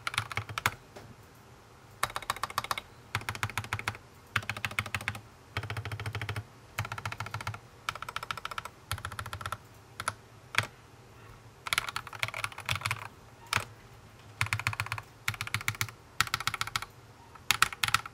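Typing in short quick bursts on a modded Redragon Kumara mechanical keyboard with lubed Akko Matcha Green switches, tape and foam mods and Akko ASA keycaps: runs of rapid key clacks broken by brief pauses.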